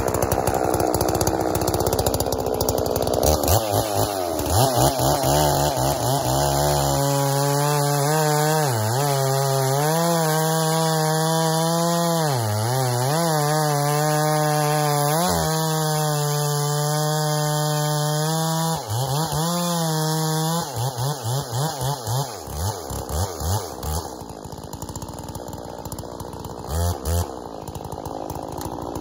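Two-stroke gas chainsaw cutting through a log, held at full throttle with its pitch dipping several times as the chain bites into the wood. About twenty seconds in it drops back to a lower, uneven note, with a brief rev near the end.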